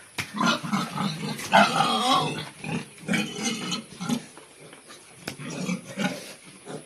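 Pigs grunting repeatedly in short, quick grunts, louder in the first half and fainter toward the end, with a few sharp clicks among them.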